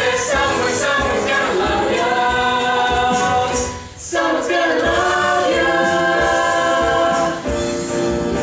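A group of voices singing a musical-theatre number over instrumental backing, with a short break about four seconds in.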